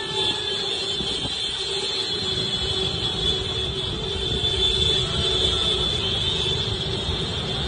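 A procession of scooters and mopeds riding slowly past, their engines rumbling under a continuous chorus of horns held down together, giving steady, slightly wavering tones.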